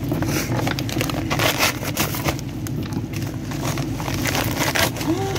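A yellow Amazon padded paper mailer being torn open and crinkled by hand: irregular ripping and crackling with no regular rhythm, over a steady low hum.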